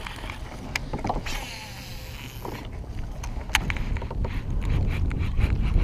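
Kayak under way on a Torqeedo electric motor: a steady rush of water and wind buffeting the microphone, growing louder in the second half, with a few sharp clicks.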